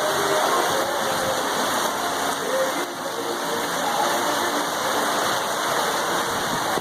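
Rain falling steadily, an even hiss, with faint voices underneath.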